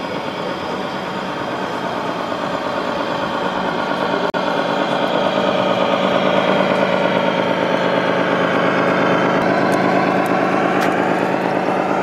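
Simulated diesel truck engine from the onboard sound module of a radio-controlled scale Scania truck, running steadily and growing louder as the truck approaches, with a brief dropout about four seconds in.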